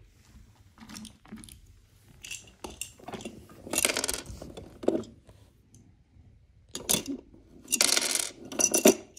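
Small hard objects clinking and clattering together, like coins tipped out: scattered clicks, then two dense clattering bursts about four and eight seconds in, with a duller knock between them.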